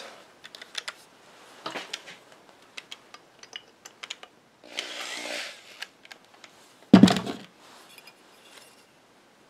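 Small handling noises of a screwdriver and a sheet-metal bracket, light clicks and scrapes as the bracket is unscrewed from the ceramic block of a furnace hot surface ignitor. About two-thirds of the way through comes one sharp knock.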